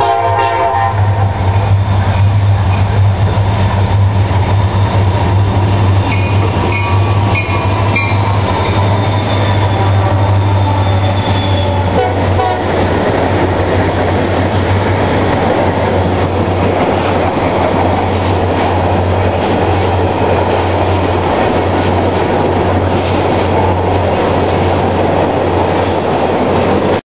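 Ethanol freight train passing close by: a locomotive horn near the start and the diesel locomotives running past. From about twelve seconds in, a steady rush of tank-car wheels on the rails.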